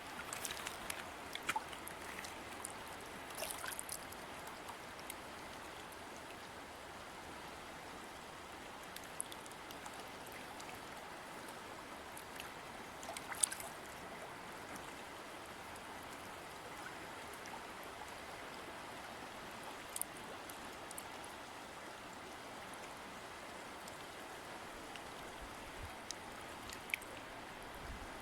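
A river or stream running steadily, a continuous rushing of water with a few sharp clicks scattered through it.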